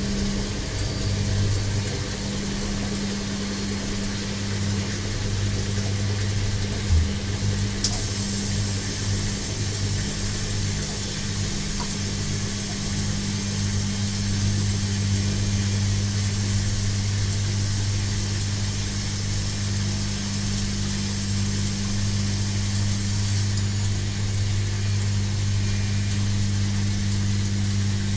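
Washing machine running with a steady low motor hum and even whooshing noise, with two brief knocks about seven and eight seconds in.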